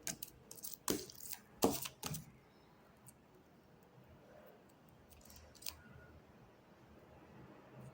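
Sticky fluffy slime being pulled and squeezed by hand, giving a handful of short crackles and tearing sounds in the first two seconds, then only faint handling.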